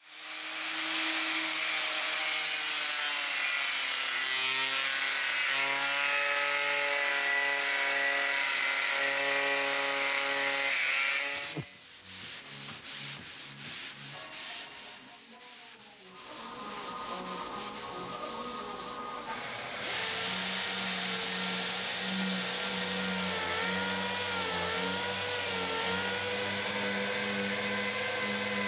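A small angle grinder with an abrasive disc grinds the rough fiberglass edge of a mould, its pitch wavering under load. About 11 seconds in this gives way to quick back-and-forth hand-sanding strokes, roughly three a second. From about 16 seconds on, an orbital sander runs steadily on the fiberglass surface.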